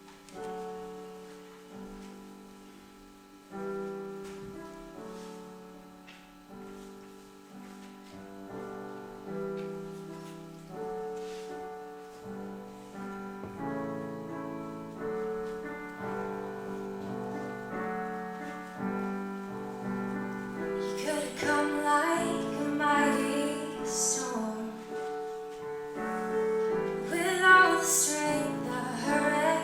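Slow piano introduction of sustained chords, then a woman's voice begins singing over the piano about 21 seconds in, growing louder toward the end.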